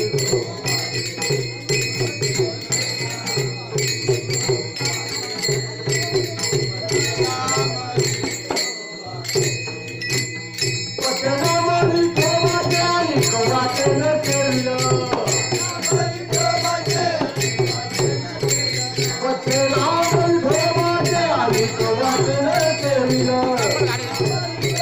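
Devotional group music: many small brass hand cymbals clashing in a fast even rhythm with a two-headed barrel drum. Men's voices come in singing a chant-like melody from about eleven seconds in.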